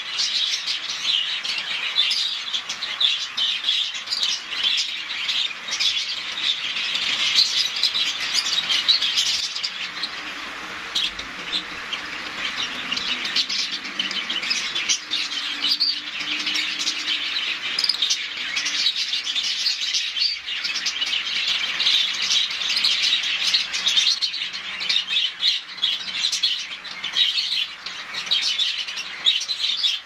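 A flock of caged budgerigars chattering and chirping continuously, with a softer low cooing from a dove through the middle stretch.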